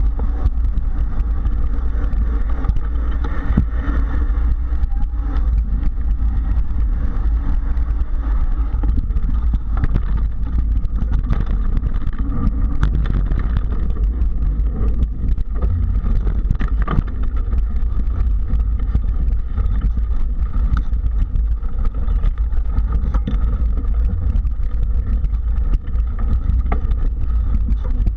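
Mountain bike rolling over a dirt trail, heard from a camera mounted on the bike or rider: a steady heavy rumble with frequent small clicks and rattles from bumps in the trail.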